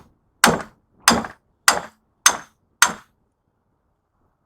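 Hammer strikes on a bar or chisel, knocking copper windings out of a scrap electric motor's stator: five sharp blows about 0.6 s apart that stop about three seconds in.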